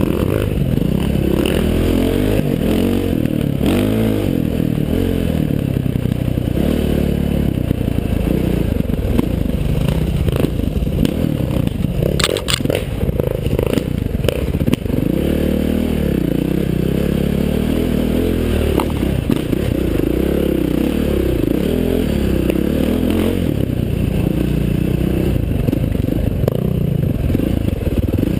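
KTM 530 XC-W dirt bike's single-cylinder four-stroke engine revving up and falling back again and again while riding a rocky trail, with the clatter and knocks of the bike over rough ground. A quick run of sharp knocks comes about twelve seconds in.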